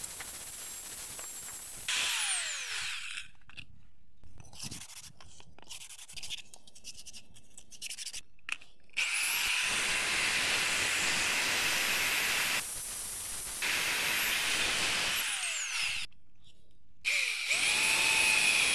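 Handheld electric drill running in spells while a wooden spoon blank is pressed against its spinning bit, grinding and rubbing the wood; the motor's whine winds down each time it is let off. Near the end an angle grinder starts up with a rising whine.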